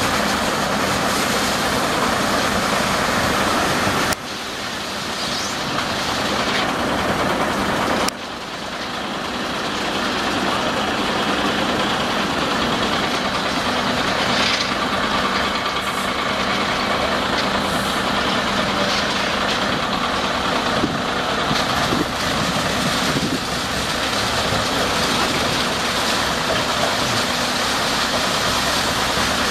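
Heavy diesel construction machinery running steadily, its level dropping suddenly twice within the first eight seconds and then building back up.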